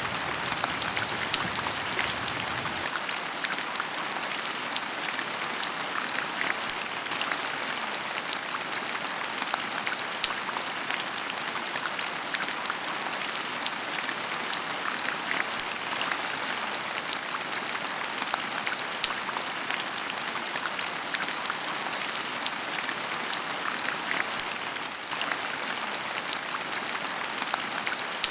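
Heavy rain falling steadily, a dense hiss dotted with the fine ticks of individual drops striking nearby surfaces. A faint low rumble beneath the rain stops about three seconds in.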